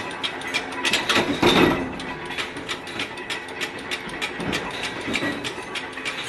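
Machinery clicking rapidly and steadily, about six clicks a second, with a louder rattling burst about a second in.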